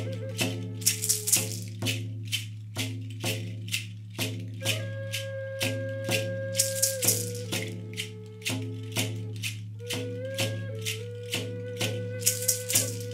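Layered meditative music: a frame drum struck with a beater in a steady beat about twice a second, gourd rattles shaken in bursts, and a wooden flute playing a slow melody of long held notes, over a low steady drone.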